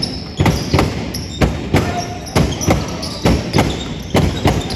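A basketball being dribbled on a hardwood gym floor: a steady run of sharp bounces, about three a second.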